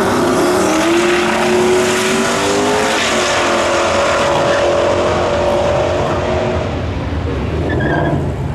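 First-generation Chevrolet Camaro drag car at full throttle down the strip, the engine's pitch climbing and stepping at gear changes, then holding and fading as the car pulls away near the end.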